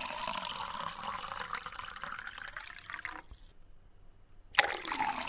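Clear liquid poured from a plastic bottle into a glass of ice, mint and lime, splashing and trickling as it fills; the pour stops about three seconds in and starts again near the end.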